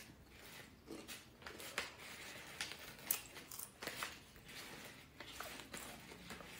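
Faint crinkling and rustling of a plastic package being handled, with scattered small crackles and clicks.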